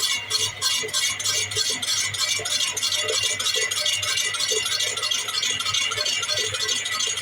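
A machine running with a fast, even metallic rattle of about five or six clicks a second, over a steady high whine and a low hum.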